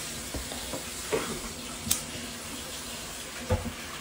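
A man taking a drag on a smoke: faint breathy drawing over a steady hiss, with a few short, soft noises along the way.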